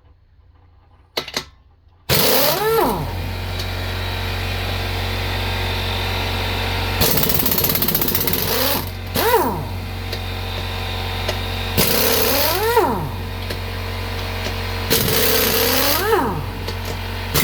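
A shop machine starts abruptly about two seconds in and runs steadily with a loud low hum. A whine rises and falls in pitch every three to five seconds.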